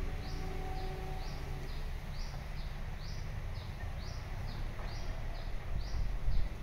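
A bird repeating a high two-note call at about two notes a second, over a steady low rumble. A few faint steady tones die away in the first two seconds.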